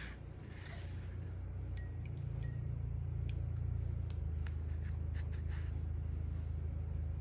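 A few faint clinks and light taps over a steady low hum; the hum grows louder about two seconds in.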